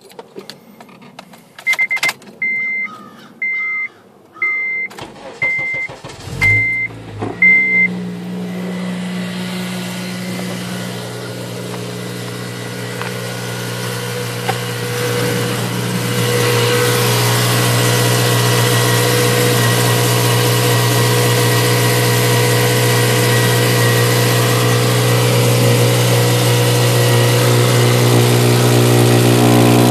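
An 8th-generation Honda Civic Si's chime beeps about once a second, then the engine cranks, catches and settles into a steady idle that grows louder about halfway through. The owner suspects an exhaust leak.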